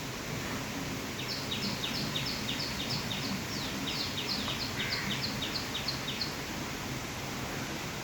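A bird calling a rapid series of short, high, clipped notes, about four or five a second, for about five seconds, over a steady background hiss.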